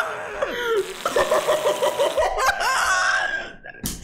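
A man laughing hard in a long fit of rapid 'ha-ha-ha' bursts with wheezy breaths in between, dying down near the end, where a sharp knock is heard.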